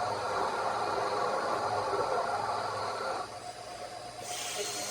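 CNC mill's helical endmill cutting hot-rolled steel, a steady grinding cut with a ringing whine that stops about three seconds in. A burst of hissing follows near the end.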